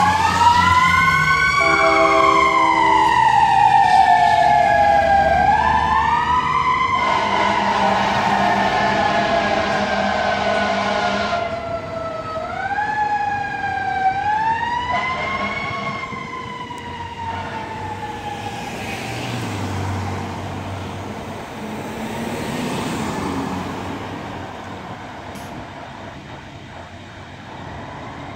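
Fire engine siren wailing as the engine drives off: its pitch rises quickly and falls slowly, over and over, then fades with distance. A short, steady air-horn blast sounds about two seconds in.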